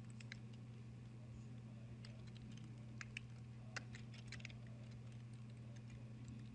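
Faint computer keyboard typing: scattered keystrokes, some in quick little clusters, over a steady low electrical hum.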